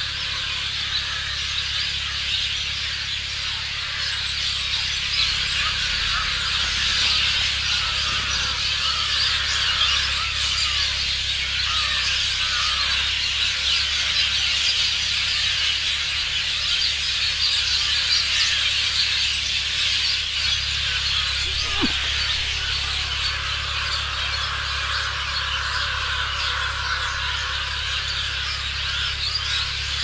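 A dense chorus of many birds chirping and calling at once in bamboo, a steady unbroken din of overlapping high calls, with one lower call standing out briefly about two-thirds of the way through: birds gathering to roost for the night.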